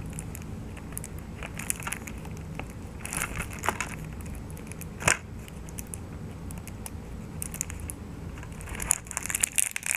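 Plastic shrink-wrap on a Blu-ray case being picked at and peeled, with scattered soft crinkles and small clicks and one sharper snap about five seconds in.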